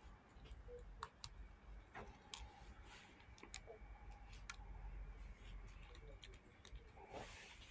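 Near silence broken by about half a dozen faint, sharp clicks at irregular intervals, mostly in the first half.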